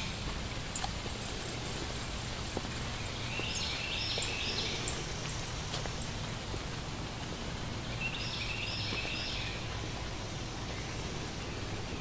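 Garden ambience: a songbird repeats a short phrase of rapid high notes about every four to five seconds, over a steady low hum.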